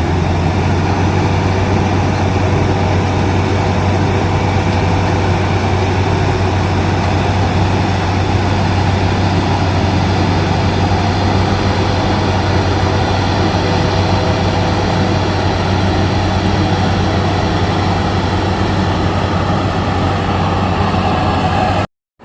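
Maxxi Bimo 110 Plus combine harvester running steadily, a loud engine drone with a constant whine above it. It breaks off abruptly just before the end.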